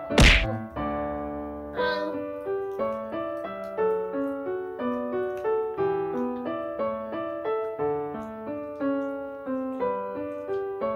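Light piano waltz playing as background music, one note after another at an even pace. A single sharp thunk sounds right at the start.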